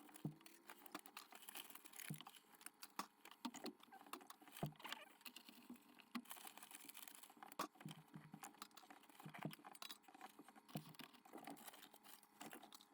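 Near silence with scattered faint clicks and light taps, irregular and a few per second at most.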